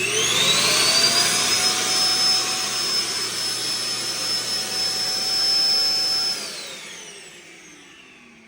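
Roomba self-emptying base station's suction motor finishing its spin-up with a rising whine, then running loud and steady with a rush of air as it empties the robot's bin. About six seconds in it shuts off and winds down with a falling whine.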